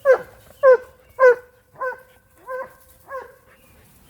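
Dog barking six times in a row, about every two-thirds of a second, the first three loudest and the later ones softer.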